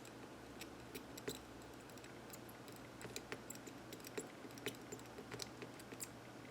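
Light, irregular clicks and taps of small tools and parts being handled while working on a calculator's circuit board, growing busier about halfway through, over a faint steady hum.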